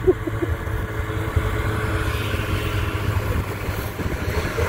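Snowmobile engine running fairly steadily.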